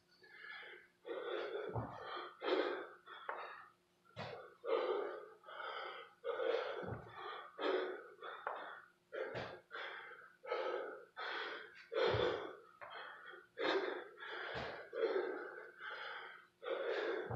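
A man breathing hard and fast through burpees, quick heavy breaths about two a second. A dull thud on the floor comes with each repetition, about every two and a half seconds.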